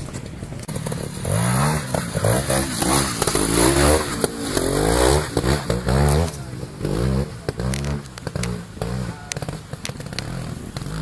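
Pre-65 trials motorcycle engine revving in repeated rising and falling surges. It is loudest from about a second in until about seven seconds, then drops back to lower, irregular blips.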